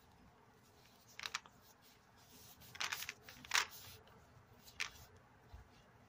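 Clear plastic gloves crinkling and rubbing against a plastic supplement bottle as it is turned in the hands: four short crackling rustles, the loudest a little past halfway.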